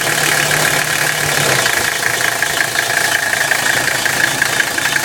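A 1985 Mercedes-Benz 300CD's five-cylinder turbodiesel running with a steady, rapidly pulsing grinding sound over the engine note. The engine note drops slightly about a second and a half in. The grinding is an undiagnosed fault that the owner says is loudest around 1,500 rpm.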